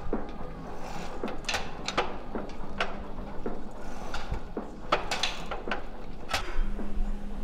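Gym weight machines clanking: irregular sharp metallic clicks and knocks, about two a second, some ringing briefly.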